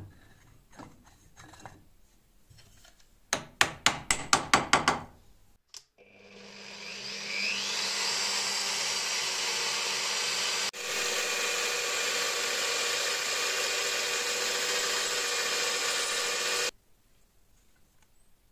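A quick run of about eight sharp knocks, then a Bosch drill press spinning up and running steadily as its bit drills through a black wooden katana handle, cutting off suddenly.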